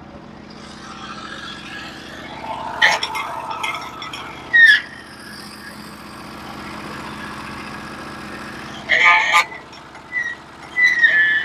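Norwood HD36v2 portable band sawmill's engine running steadily while the band cuts through a red oak log, run dry without water lubrication. A few short, sharp clatters and squeaks break in about three, five and nine seconds in and again near the end.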